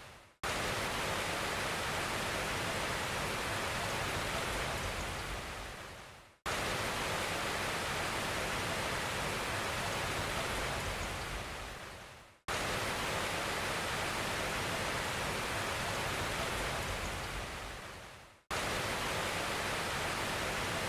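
Steady, even hiss with no tone or rhythm of a machine in it. It fades away and then cuts back in abruptly about every six seconds, three times, like a noise track played as a loop.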